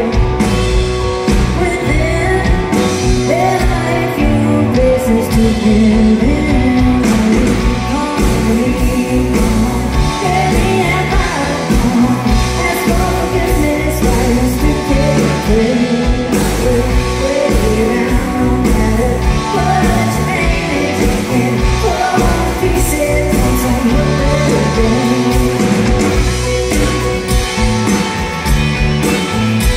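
Live rock band playing a song: a woman singing lead over electric guitars and drums.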